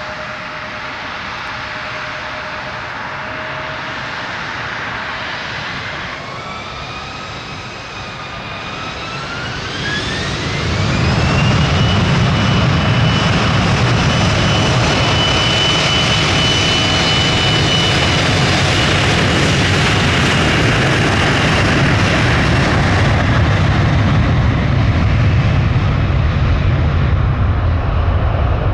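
Jet airliner engines spooling up with a rising whine, then running at high thrust with a loud steady roar and a high held whine.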